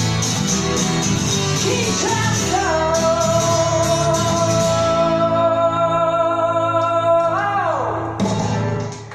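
A song's closing bars: a singer with a band, guitar among them, holds one long note from about three seconds in, then slides off it. The music dies away just before the end.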